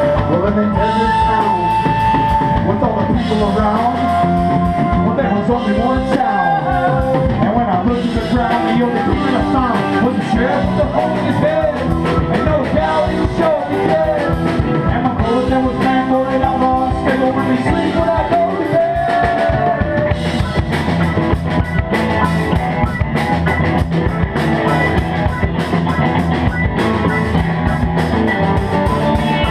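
Live rock band playing an instrumental stretch on electric guitars, bass and drum kit, with a lead guitar line bending and sliding in pitch over the steady band.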